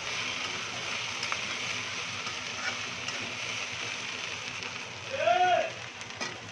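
Sliced okra sizzling in hot oil in a steel kadai, a steady hiss, with a metal spatula now and then scraping and tapping the pan as it is stirred. About five seconds in comes a brief pitched sound that rises and then falls, the loudest thing heard.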